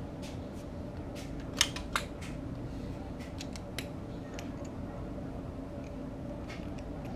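Scattered sharp metallic clicks and taps of a ratchet and small bolts being handled against the underside of a motorcycle engine, with a pair of louder clicks just under two seconds in, over a steady low hum.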